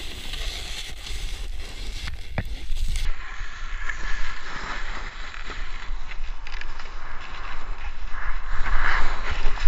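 Snowboard sliding and scraping over snow, with wind rumbling on the GoPro's microphone; the hiss of the board on the snow grows louder towards the end.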